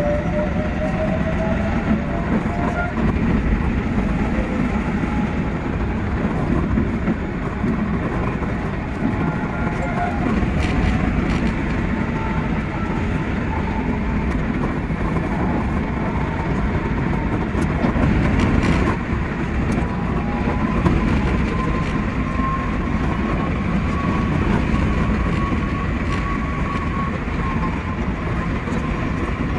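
Keikyu 600 series electric train running at speed: a steady rumble of wheels on rail, with a faint whine from the traction motors that slowly rises and falls in pitch and a couple of brief sharp clacks.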